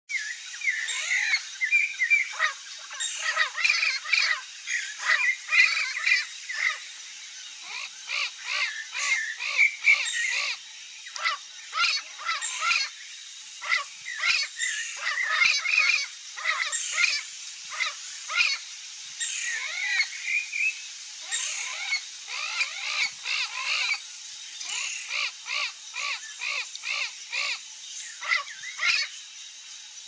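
A busy chorus of wild songbirds calling and singing, many short notes overlapping in quick succession with a few brief lulls.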